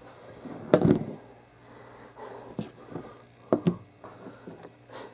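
An iPod touch being set down on a tabletop, with a single sharp knock about a second in. It is followed by a few light clicks and faint handling rustles.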